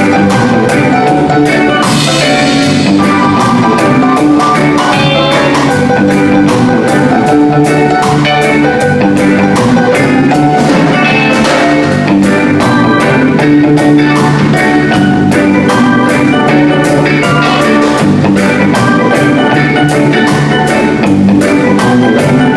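A live reggae band playing an instrumental tune, a drum kit keeping a steady beat under sustained melodic notes.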